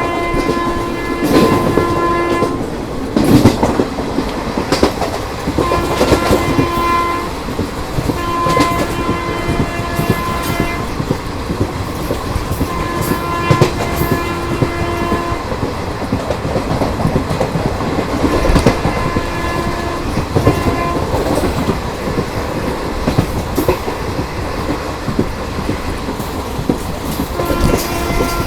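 A WAP-4 electric locomotive's horn sounding repeatedly, about six blasts of one to three seconds each. Under it runs the steady clickety-clack of ICF coach wheels passing over rail joints at speed.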